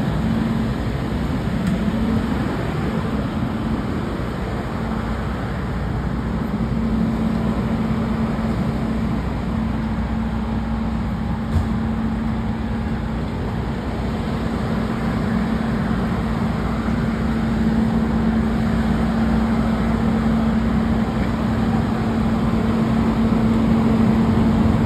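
Diesel engine of a Pierce Quantum fire engine running steadily while it drives the fire pump, a continuous rumble with a steady hum. A single short click about halfway through.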